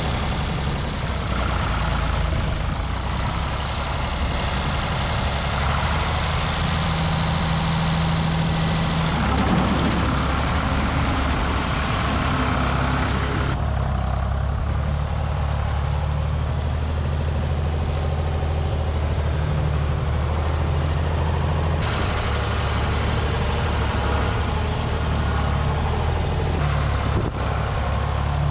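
Ford 4000 diesel tractor engine running steadily as the tractor is driven, a low, even engine note throughout.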